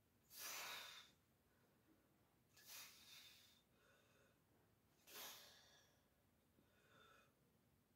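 Faint breathing of a man straining through a set of dumbbell chest flies: a sharp breath out about every two and a half seconds, the last one weaker.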